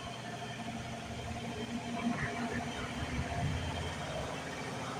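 Electrolux washing machine running mid-cycle: a steady motor and drum hum that swells a little in the low end about halfway through.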